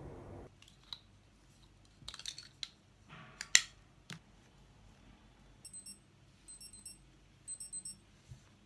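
Plastic clicks and rattles as a digital clinical thermometer is taken from its case and handled, then the thermometer beeps in three short bursts of quick high beeps. A steady outdoor noise cuts off half a second in.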